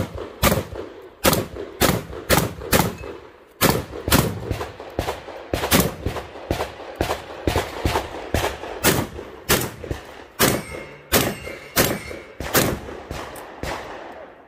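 Saiga-12 semi-automatic 12-gauge shotgun firing rapidly, about a shot every half second, with one brief pause about three and a half seconds in.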